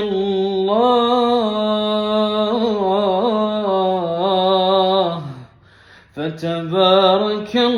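A man's voice chanting Quranic verses unaccompanied in melodic tarteel style, holding long, gliding, ornamented notes. It breaks off for a breath about five seconds in, then resumes.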